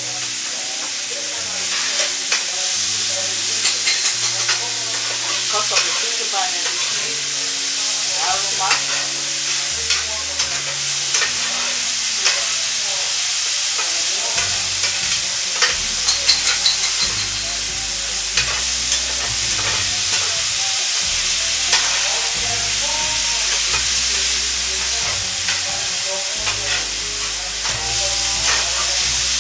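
Vegetables sizzling steadily as they sauté in butter and oil in a frying pan. A utensil scrapes and taps against the pan in irregular clicks as they are stirred.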